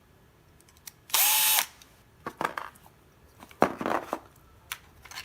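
Power drill run in one short burst of about half a second, about a second in, driving a bolt in the 3D-printed plastic knob base. It is followed by a few clicks and rattles of small plastic parts being handled.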